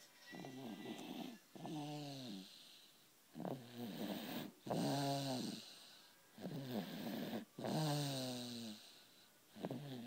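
Snoring in a steady rhythm, about seven snores in a row. Each lasts roughly a second and drops in pitch.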